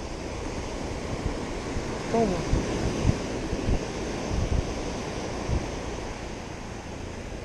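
Surf breaking and washing up a sandy beach, with wind buffeting the microphone in low thumps. A short falling tone is heard about two seconds in.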